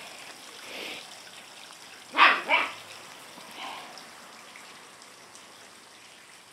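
Puppies at play, one giving two quick yaps about two seconds in and a fainter one a second later.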